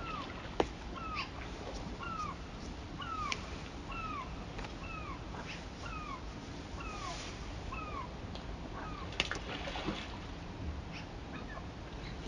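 A gull calling: a string of a dozen or so short, downward-sliding mewing notes, about two a second, that stops about two-thirds of the way through, followed by a couple of sharp clicks.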